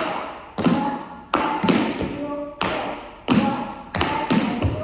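Metal-tipped tap shoes striking a wooden studio floor in a tap step: sharp clicks in an uneven, bouncy rhythm of two to three a second, each ringing on briefly in the room.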